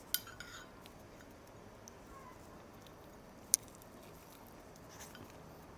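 Quiet eating sounds, faint and mostly near room tone, with a few soft ticks and one sharp click about three and a half seconds in.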